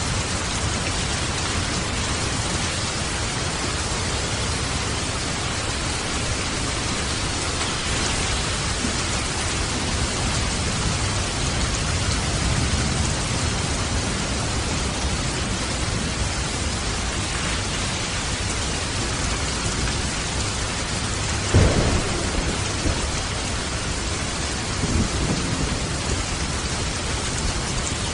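Steady hiss of light rain and falling water. A sudden low rumble comes about three quarters of the way in, with fainter low swells after it.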